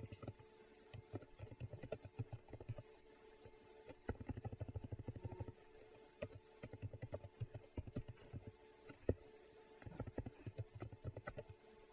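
Computer keyboard typing: quick keystrokes in several short bursts with pauses between them.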